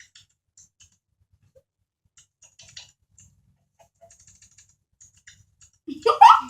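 Faint, scattered crunching and crackling of Kkobuk Chip corn snacks being chewed carefully to keep quiet. Near the end, a brief loud voice sound breaks in.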